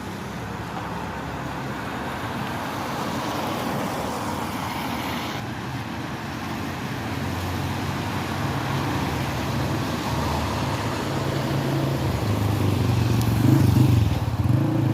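Road traffic on a rain-wet road: a steady hiss, with a vehicle engine's hum coming in about halfway and growing louder toward the end.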